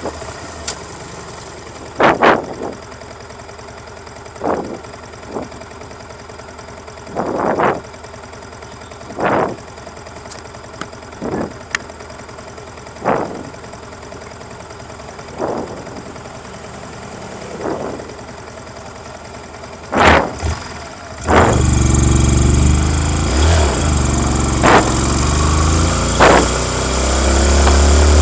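Yamaha MT-15's 155 cc single-cylinder engine with its stock exhaust, running with short throttle blips every second or two. About 21 seconds in it turns much louder and deeper, with the pitch rising as the bike pulls away and accelerates.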